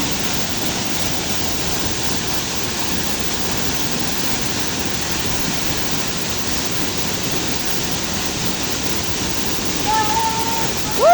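Waterfall running full, a steady rush of falling water. Near the end a voice calls out briefly over it.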